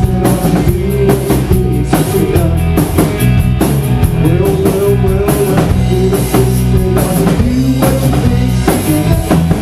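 Live rock band playing loud: electric guitar, electric bass and drum kit, with the guitar carrying a lead line of bent notes over a steady beat.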